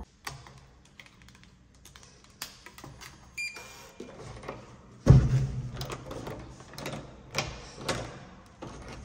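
Clicks and knocks of hands working a hotel door's electronic keycard lock and lever handle, with a short electronic beep about three and a half seconds in and a heavy thump about five seconds in.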